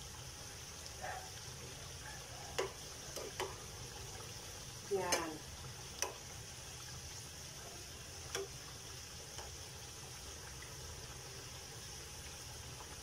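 Sweet potato chunks frying in oil in a pan, a faint steady sizzle as they slowly brown before sugar goes in. A metal spoon stirring them clinks sharply against the pan a few times, and a short falling call sounds about five seconds in.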